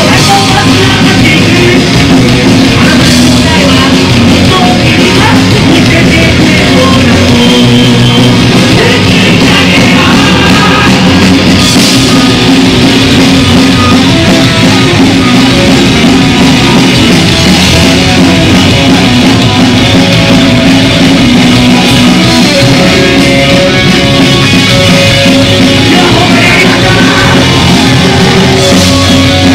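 Japanese punk rock band playing live, loud and without a break: electric guitars, bass and drum kit with a singer shouting the vocals, and crash cymbal hits standing out now and then.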